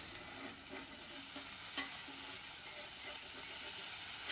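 Smash burger patty sizzling steadily on a hot steel griddle, as a metal spatula scrapes along the steel underneath it to free the crust.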